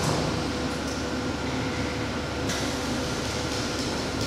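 Steady mechanical hum and hiss of factory machinery with a faint steady tone. The hiss grows brighter about two and a half seconds in.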